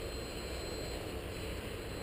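Steady low rumble with a faint hiss, even throughout, with no distinct knocks or clicks.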